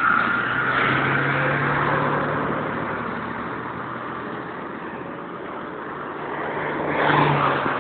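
Optare Spectra DAF bus's engine and drivetrain heard from inside the bus while it is under way. Louder at first, easing off through the middle, then building again near the end.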